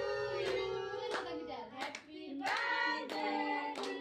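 A group of children singing a birthday song together in held, steady notes, with hand claps scattered through it.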